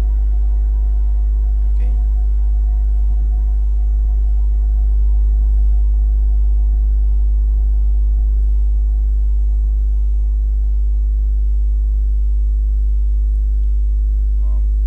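Loud steady low electrical hum with several fainter steady tones above it, unchanging throughout, picked up by the recording microphone. A faint tick or two sounds about two and three seconds in.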